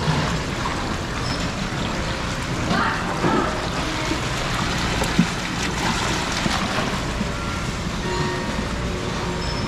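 Steady rush of water running and churning through a water exhibit's steel-and-acrylic channel, over a low hum. A single sharp knock comes about five seconds in.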